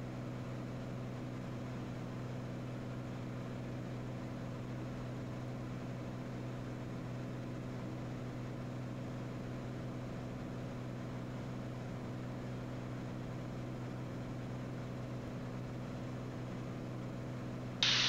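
Cirrus SR22's piston engine and propeller running steadily in flight, a constant low drone with a light hiss over it.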